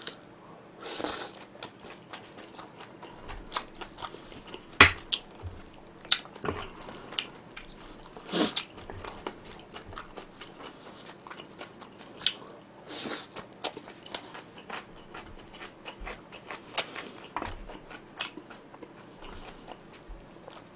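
Close-miked chewing and wet mouth sounds of a person eating spicy stir-fried pork (jeyuk) with rice, many small clicks and smacks with a few louder ones scattered through.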